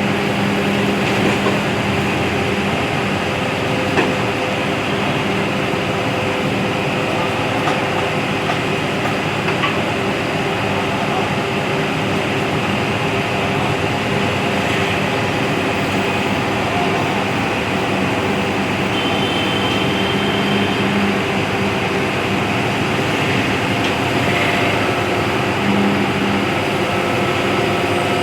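JCB excavator's diesel engine running steadily under load, with a sharp knock about four seconds in.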